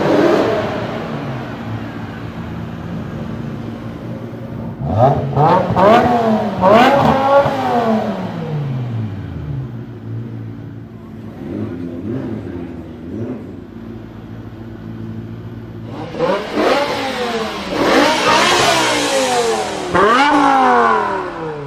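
BMW M5 E60's S85 5.0-litre naturally aspirated V10 idling and being revved in quick blips. The revs come in two bursts, several rises and falls each, with the engine settling back to idle between them.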